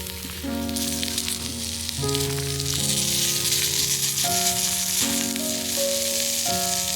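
Sizzling over a small fire stand, a steady hiss that grows denser about two and a half seconds in, with background music of held notes playing over it.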